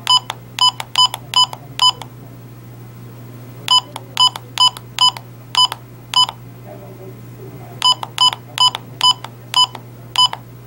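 Short electronic beeps, one steady pitch with a buzzy edge, from a small receiver unit's speaker answering an infrared remote's button presses: three runs of six or seven beeps at about two and a half a second, with pauses of about two seconds between. The remote is being fed a falling supply voltage to emulate a draining battery, and the beeps keep sounding at about 2 V.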